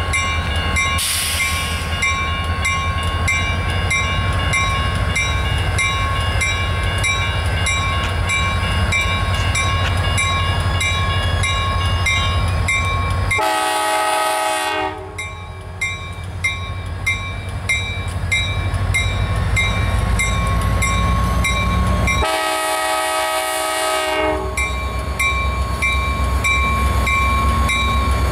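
EMD SD40-2 diesel locomotive leading a freight train past at low speed, its engine rumbling steadily while its bell rings about twice a second. The horn sounds twice: a blast of about a second and a half about halfway through, and a longer blast of about two seconds near the end.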